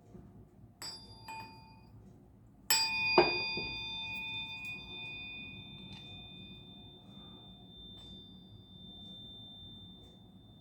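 Metal tuning fork struck: two light taps, then a harder strike about three seconds in, followed at once by a knock. It rings with several tones; the lower ones fade within a few seconds while one high tone keeps ringing.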